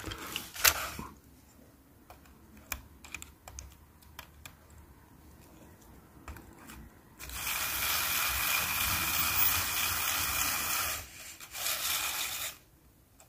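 Clicks and taps as a 9-volt battery's terminals are touched against the wheels of an upturned Hornby Bulleid Pacific model locomotive. About seven seconds in, the loco's motor and gear train start running steadily under battery power, with its newly fitted idler gear. The running cuts out for a moment a little before the end and starts again briefly.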